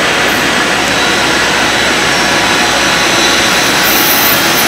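EF66 electric locomotive approaching at the head of a container freight train, with a loud, steady motor and running noise.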